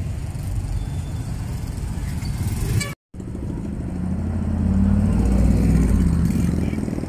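Steady street traffic noise with a motor vehicle engine running close by, louder for a few seconds after a very brief dropout about three seconds in.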